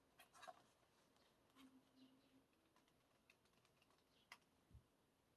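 Near silence with a few faint, scattered clicks and light taps from handling small objects, the strongest about four seconds in, followed by a soft low thump.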